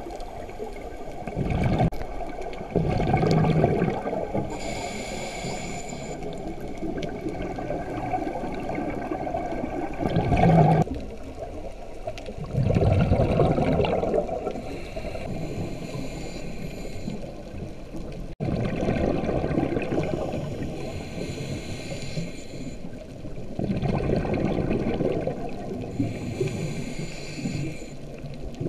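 Scuba diver's regulator breathing, heard underwater through the camera housing: hissing inhales alternate with gurgling bursts of exhaled bubbles every few seconds.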